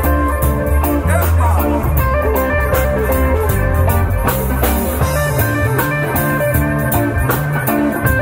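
Live band playing: an electric guitar over an electric bass line, with a drum kit keeping a steady beat.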